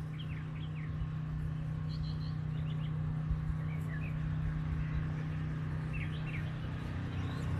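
Small birds giving short, high chirps every second or so over a steady low hum.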